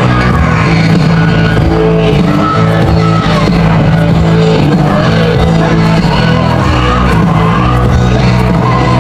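Loud rock music with singing, played over a stadium's public-address system.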